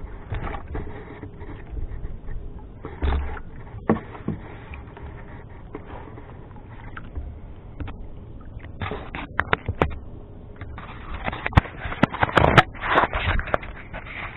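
Handling noise from the camera being moved and adjusted: knocks, rubbing and scraping close to the microphone, thickest in a run of loud knocks about two-thirds of the way through, over a low steady rumble.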